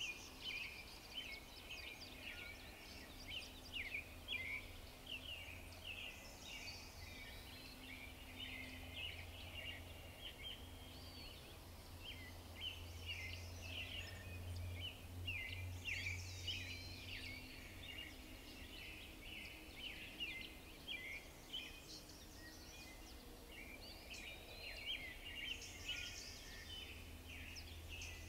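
Many songbirds chirping and singing over one another in a dense, unbroken chorus of high notes. A higher song phrase recurs about every ten seconds. A faint low rumble runs underneath.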